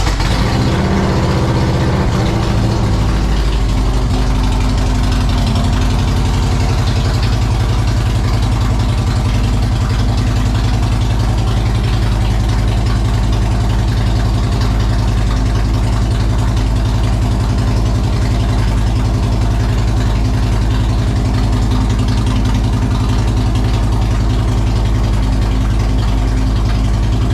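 2007 Harley-Davidson Road King Custom's Twin Cam V-twin fires right at the start, settles within a couple of seconds and then idles steadily and loudly. It is running now that a fresh key fob battery lets the security system disarm.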